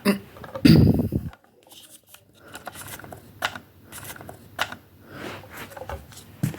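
Plastic clicking, rattling and rustling from a toy foam-dart blaster being handled, with a loud low thump or puff of breath about a second in.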